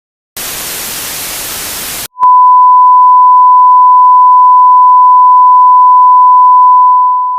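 A burst of white-noise static lasting under two seconds, then a click and a loud, steady single electronic tone at one pitch, fading out near the end: the kind of static and sign-off tone used in simulated emergency-alert broadcasts.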